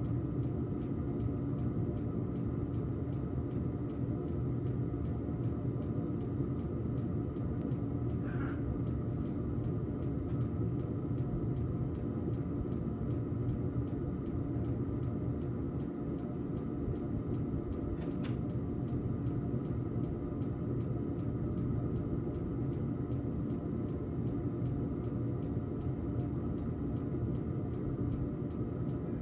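Diesel heater running steadily on its second power setting: an even combustion rumble with a steady fan hum. Its burn chamber is clogged with carbon, which the owner means to clean out with petrol.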